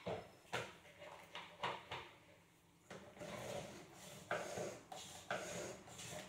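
Flat mop pushed in short strokes across a wet laminate floor, then, from about three seconds in, the mop pad scraping down and up through the plastic squeeze bucket's wringer slot in a few rasping strokes.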